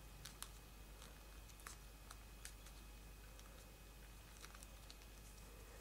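Faint, scattered ticks and light crackles of a thick, many-layered folded paper model pressed between fingertips to set its creases, over a low steady background hiss.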